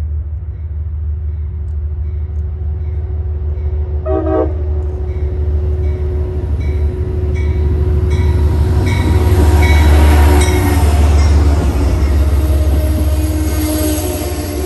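Amtrak passenger train approaching and passing close by: the diesel locomotive's rumble grows to its loudest about ten seconds in as it goes past, then the coaches' wheels roll by. A short horn note sounds about four seconds in, and the locomotive bell rings in evenly spaced strokes for several seconds.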